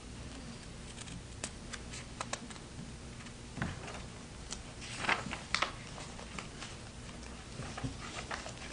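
Faint scattered clicks and light rustles of handling noise in a small room, a few slightly louder about halfway through, over a low steady hum.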